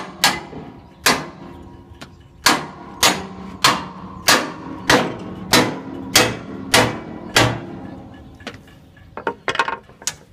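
A hefty mallet hammering a steel locking pin into the bent, misaligned cover bracket of a Morbark M8D wood chipper. About a dozen hard blows, roughly one every 0.6 s, each ringing briefly on the metal, then a few lighter taps near the end. The cover won't sit down far enough for the pin to go in by hand, so it has to be driven home.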